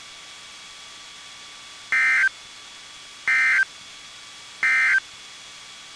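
NOAA Weather Radio SAME (Specific Area Message Encoding) end-of-message data bursts: three short, identical bursts of buzzing digital tones, each about a third of a second long and about 1.4 seconds apart, signalling the end of the weekly test message. Between the bursts there is only the receiver's faint steady hiss and hum.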